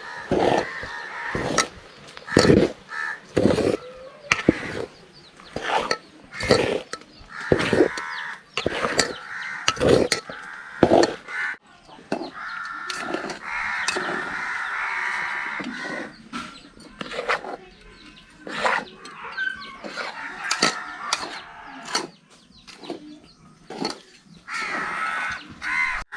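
Crows cawing over and over, mixed with many sharp knocks and clatters.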